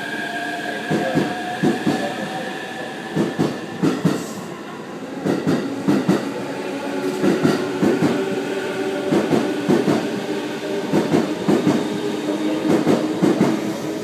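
JR East E233-series electric commuter train pulling out past the platform and picking up speed. Its wheels clack over the rail joints in quick pairs as each bogie passes, over a steady electric whine.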